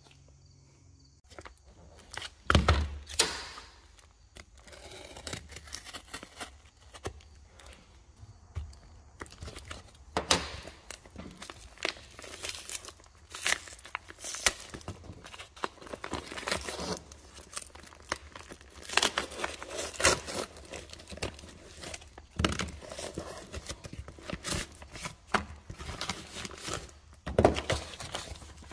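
Paper mailer being torn open by hand and unpacked: repeated tearing, crinkling and rustling of the padded envelope and the paper sheets inside, with a few dull thumps as things are handled on the bench.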